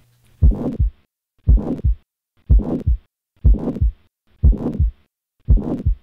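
Heart sounds with a harsh, uniform holosystolic murmur, about one beat a second: each beat is a low first sound, rough noise through the whole of systole, then the second sound. The lecturer takes it for a post-infarct ventricular septal rupture or acute mitral regurgitation from papillary muscle rupture.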